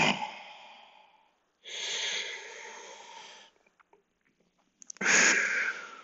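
A man taking slow, deep, audible breaths while holding a stretch: three long breaths, one fading out at the start, one about two seconds in and one about five seconds in, with short quiet pauses between.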